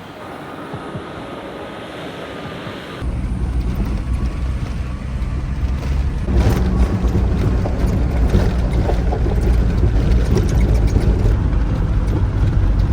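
Steady rushing noise, then about three seconds in a sudden switch to the loud, low rumble of the Land Rover Defender driving the gravel pass road, with wind on the microphone.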